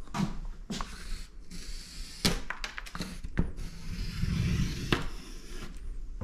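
Charcoal stick scratching and scraping over paper as lines are drawn, with a few sharp taps among the strokes and a longer scraping stretch past the middle.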